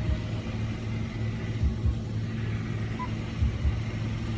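Steady low hum and rumble of an automatic car wash heard from inside the car, with two short low thumps.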